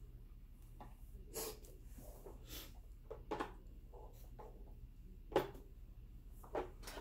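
Light, scattered taps and clicks of hands handling a plastic UV nail lamp, the sharpest about five and a half seconds in, over a faint steady low hum.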